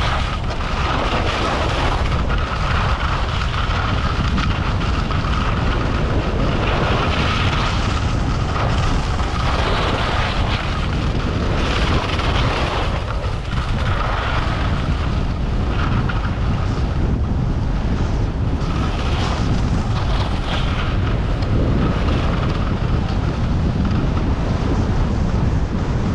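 Wind rushing over the microphone of a camera carried by a skier running downhill, with the steady hiss of skis sliding on groomed snow that surges every second or two as the edges scrape through turns.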